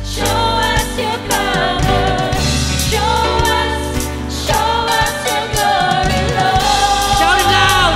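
Live contemporary worship band playing a song: several voices singing over acoustic guitar, electric bass and drums.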